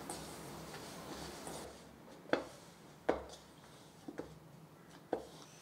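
Hands kneading soft whole wheat dough in a stainless steel bowl: a soft rubbing and squishing at first, then about four short knocks, roughly a second apart, as the dough is pressed down against the bowl.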